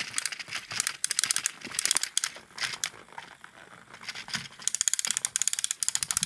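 Plastic gears of a toy train engine clicking rapidly in several bursts, a ratcheting clatter, as the engine is moved along its track.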